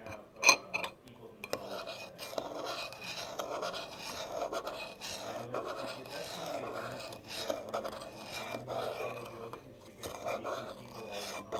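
Spoon stirring instant oatmeal and milk in a bowl: repeated scraping and rubbing against the bowl, with a sharp knock about half a second in.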